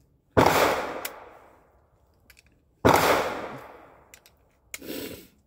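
Two loud gunshots from a nearby lane, about two and a half seconds apart, each ringing on and fading for more than a second under the range roof, with a fainter shot or thud near the end. Between them come faint clicks of 9mm cartridges being pressed into a magazine.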